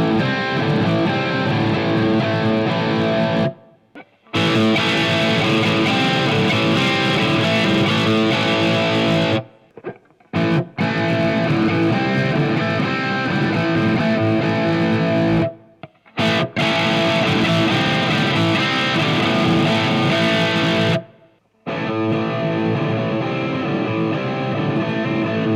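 Distorted electric guitar through a Marshall MG100HFX head and MX412B 4x12 cabinet, miked with a Shure SM57. The same riff is played in five short takes with brief breaks between them, and the tone changes from take to take as the mic position changes. The last take is duller, with less treble.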